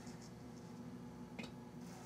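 Faint strokes of a small paintbrush loaded with oil glaze on canvas: a few short, soft scratchy touches, the clearest about one and a half seconds in, over a steady low hum.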